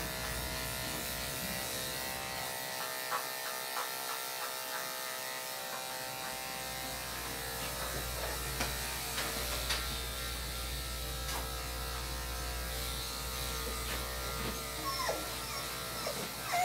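Electric pet grooming clippers running with a steady hum, with a few light clicks.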